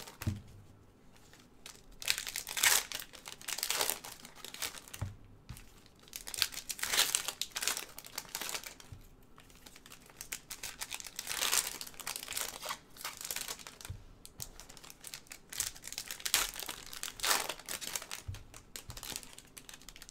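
Foil wrappers of Panini football card packs being torn open and crinkled by hand, in repeated bursts a second or two apart.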